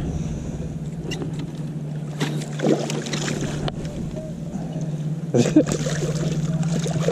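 A boat motor's steady low hum, with a few knocks and water splashes as a landing net is worked over the side of the boat.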